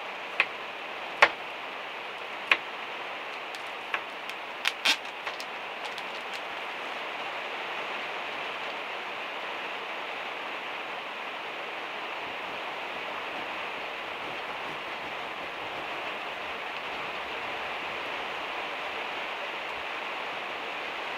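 Steady rain drumming on the van's metal roof. Over it, several sharp knife knocks on a wooden cutting board come in the first six seconds or so, as garlic is chopped.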